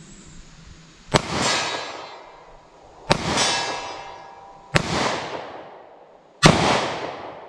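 Four shots from a 2-inch Taurus 605 snub-nose revolver firing .38 Special +P, spaced about one and a half to two seconds apart. Each crack is followed by a long echo that dies away over a second or so in the surrounding woods.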